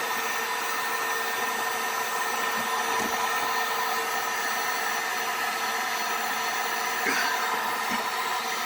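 Heat gun running steadily, its fan blowing with a steady whine, while it softens thick sticky sound-deadening insulation on a car floor pan.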